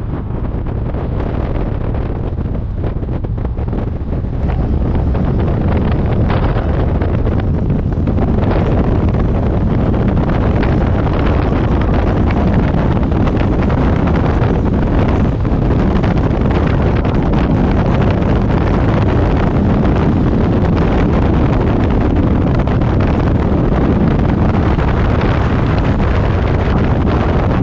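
Wind rushing over the microphone of a camera on a moving motorcycle trike, over the trike's running engine and road noise. The rush steps up about four seconds in and grows fuller and steadier as the trike picks up speed.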